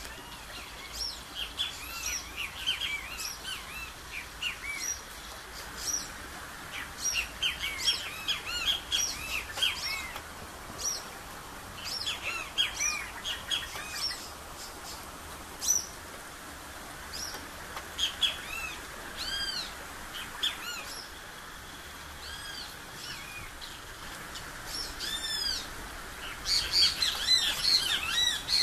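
Several wild birds chirping and singing in a forest, many short, quick, high notes overlapping, with a brief lull about two-thirds of the way through and a denser burst of chirping near the end.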